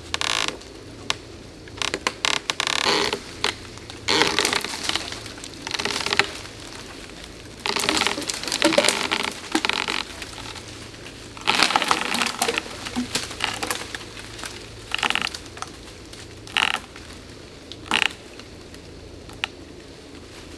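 Irregular bursts of rustling and snapping from brush and vines as a dead cedar tangled in them is pulled free. There are about nine bursts, each a second or two long, with quieter pauses between.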